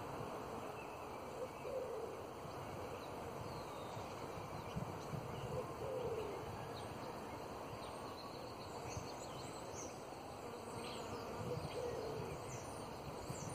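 Bees buzzing steadily around blossoms, a continuous low hum, with birds chirping faintly and high, more often in the second half.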